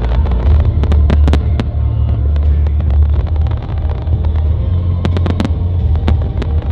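Aerial fireworks display: sharp bangs and crackles in quick clusters, in the first second or so and again about five seconds in, over a steady low rumble.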